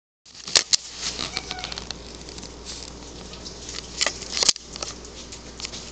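Pet skunk chewing and gnawing chicken thighs: a steady string of small wet clicks and crunches, with a few louder sharp knocks near the start and again about four seconds in.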